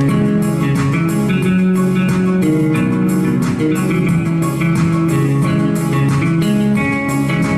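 Electronic keyboard playing a melody over a steady beat, with a plucked, guitar-like tone.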